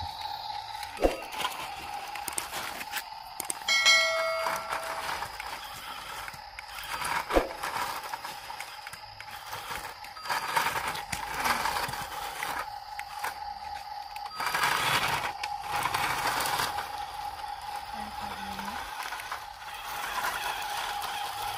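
Toy RC rock crawler's small electric drive motor and plastic gears whining steadily as it tows a toy dump truck on a chain across dirt. Louder surges of gear and tyre noise come now and then, with a few sharp clicks and a brief ringing tone about four seconds in.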